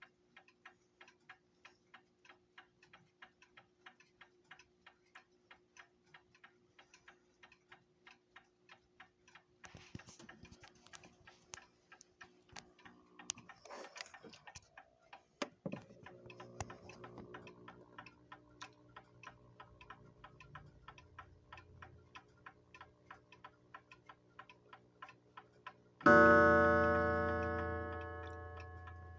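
Westclox Dialite mechanical alarm clock ticking in a quick, even rhythm after repair. About a third of the way in there are several irregular clicks and rattles over the ticking, and near the end a sudden loud ring sounds once and slowly dies away.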